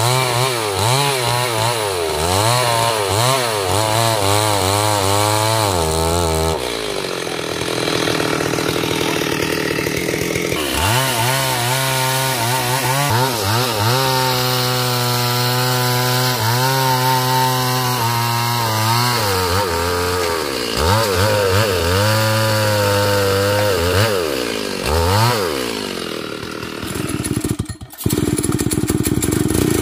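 Stihl MS 382 two-stroke chainsaw running and cutting wood. It revs up and down over and over, with spells of steady high revs, and drops away briefly near the end before running again.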